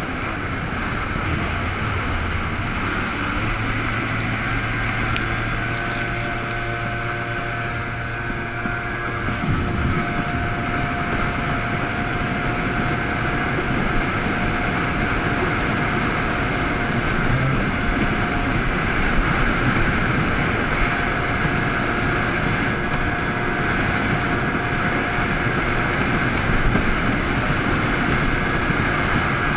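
Kawasaki Ultra 130 DI jet ski under way: its two-stroke triple engine runs steadily under the rush of water against the hull and wind on the microphone. The low engine note changes about a third of the way in.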